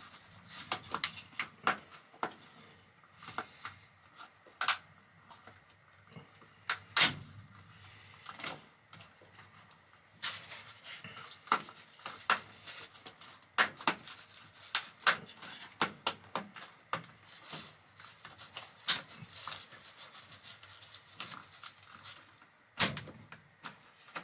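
Plastic cover strips being pressed and snapped onto slotted plastic cable trunking: many irregular sharp clicks and snaps.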